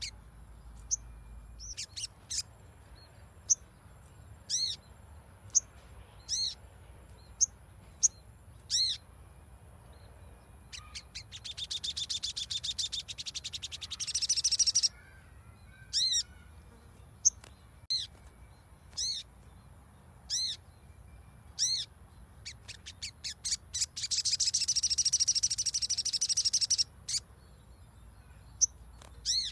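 Sogon (sogok ontong) songbird calling: sharp high chirps about once a second, broken twice by a long, rapid chattering trill of several seconds. This is lure song (pancingan) meant to prompt a silent sogon to sing.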